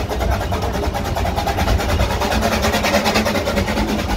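Miniature railway train running along the track: a steady low rumble of wheels on rail, with the locomotive's engine running.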